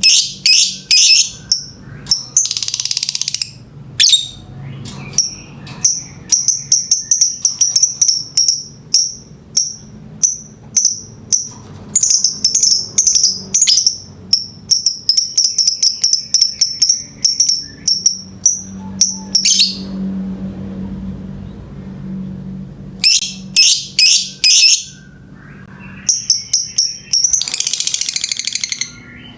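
Lovebird (Agapornis) singing in breeding excitement: rapid series of shrill chirps running into long chattering trills, with a pause about two-thirds of the way through.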